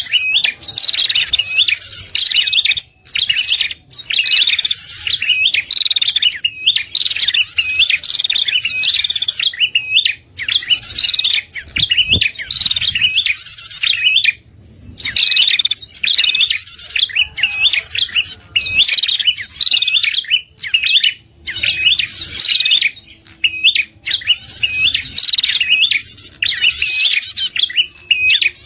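Recorded lure song of a red-headed prenjak (prenjak kepala merah): fast, repeated chirping phrases with a higher trill every couple of seconds, looped to draw wild prenjak in.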